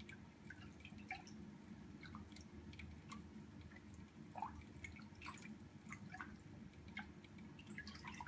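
Water in a small tank being stirred by a pike fly drawn through it: irregular small drips and plinks, several a second, over a faint steady low hum.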